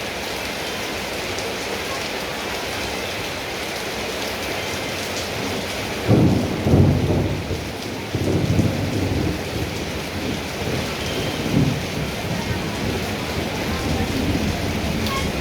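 Steady rain falling. About six seconds in, thunder breaks with a sudden low rumble that rolls on and fades over several seconds.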